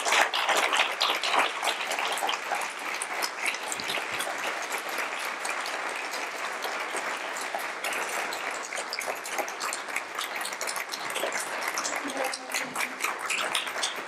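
Audience applauding at the end of a lecture: a dense patter of many hands clapping, loudest at the start and easing slightly.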